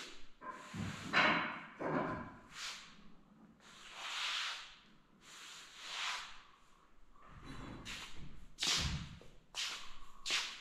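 Irregular rustles and a few dull thuds as a handheld camera is carried across a hardwood floor: footsteps and camera-handling noise, with the loudest thud near the end.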